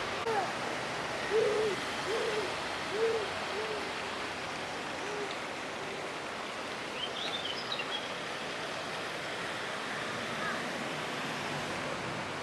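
A bird hooting: about six short, round hoots in a row that fade away over the first few seconds. Brief high chirps come in about midway, over a steady background hiss.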